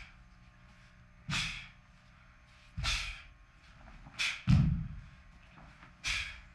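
Taekwondo pattern techniques: a short, sharp rush with each movement, the forced breath and the snap of the cotton dobok, five in all about a second and a half apart. The loudest and deepest, with a thump under it, comes about four and a half seconds in, as he lands from a jump.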